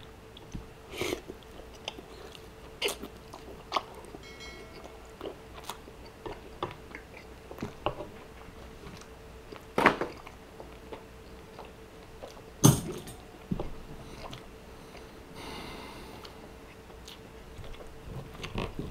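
Close-miked chewing of a mouthful of grilled steak: soft wet mouth clicks and smacks, with a few sharper clicks. Near the end, a knife and fork work on the steak.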